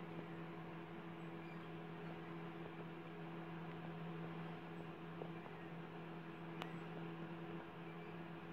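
A faint, steady low hum with a light hiss, unchanging throughout, and a single faint click about six and a half seconds in.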